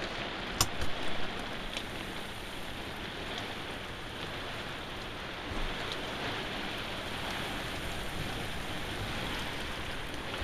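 Heavy rain pouring down steadily, with a sharp click about half a second in and a few small knocks just after.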